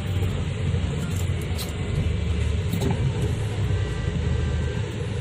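Car engine and road rumble heard from inside the cabin of a moving car: a steady low drone.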